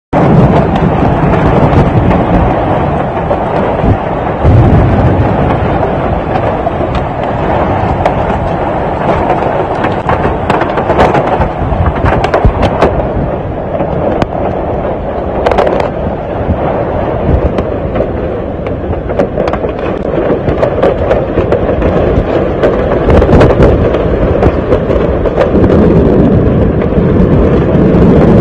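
Severe thunderstorm: strong wind buffeting the phone's microphone with heavy driving rain. It makes a loud, constant rushing noise with an uneven low rumble and many crackling pops throughout.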